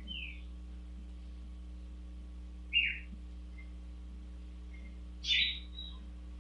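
A bird chirping: a few short calls a couple of seconds apart, one a quick downward-sliding chirp and a longer one near the end, over a steady low hum.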